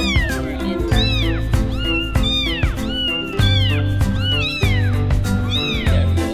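Tiny kittens, about 12 days old, mewing over and over in high-pitched falling cries, about two a second, over background music.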